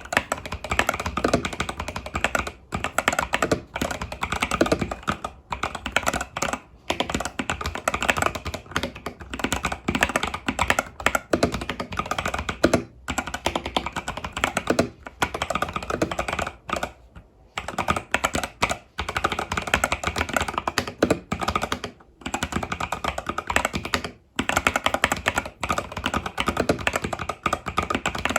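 Fast, continuous typing on an Epomaker TH80 Pro mechanical keyboard with Epomaker Budgerigar tactile switches and stock keycaps, key presses clacking in quick runs with a few short pauses.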